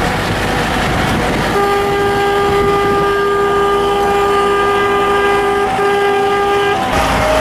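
A vehicle horn sounding one long, steady, single-pitched blast of about five seconds, starting about a second and a half in, with a brief break near the end. Engine and wind rumble run underneath.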